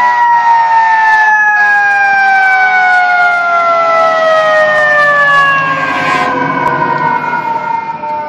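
Fire engine's siren winding down, its pitch falling slowly and steadily.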